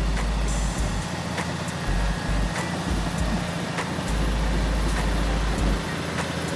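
Heavy machinery running, a low engine rumble with sharp knocks roughly every half second.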